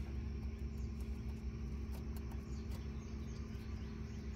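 A few faint, small clicks as a wire's ring terminal and nut are worked onto a winch motor's terminal stud by hand, over a steady low hum.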